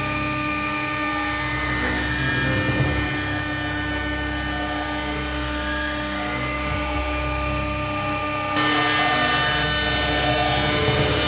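2.2 kW spindle of a 6090 CNC router running at about 10,000 rpm while a fine cutter mills a solid brass coin blank: a steady whine with several fixed tones. About eight and a half seconds in, the sound turns brighter and a little louder.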